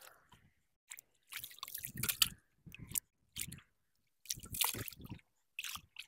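Hands splashing and squelching in shallow muddy water while scooping up wet mud from the bottom, in a series of irregular splashes and sloshes.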